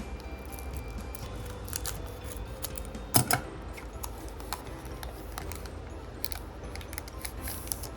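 Handling a Disney Lorcana trading-card booster pack: the foil wrapper crinkling and the cards rustling and clicking in hand, with a sharper crackle about three seconds in.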